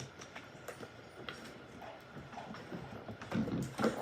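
Scattered light clicks and taps of a plastic glue bottle being handled while its stiff cap is worked open, with a slightly louder rustle of handling about three and a half seconds in.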